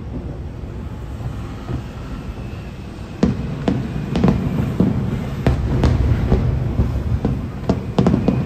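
Aerial fireworks shells bursting at a distance. A low rumble fills the first three seconds, then a run of sharp booms starts about three seconds in, at roughly two a second.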